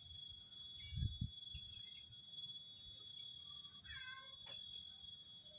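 Domestic cat giving a short meow about four seconds in. Two dull low thumps about a second in are the loudest sounds.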